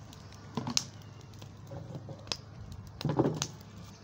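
Dry leafy branches and twigs burning in a wood fire, crackling with scattered sharp pops and two denser runs of crackle about half a second and three seconds in.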